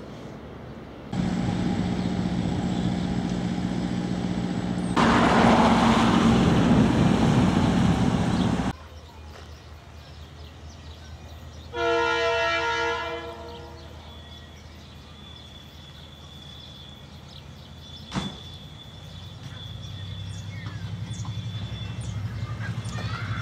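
Diesel engines of two DC-class locomotives running with a steady drone that grows louder about five seconds in, then ending abruptly. A DFT-class diesel locomotive's horn then sounds one blast of about a second and a half, and the locomotive's engine rumble builds as the train approaches.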